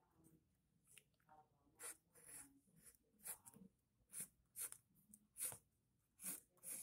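Pencil lead scratching on paper in a series of short, faint, irregular strokes, a couple a second, as lines are sketched.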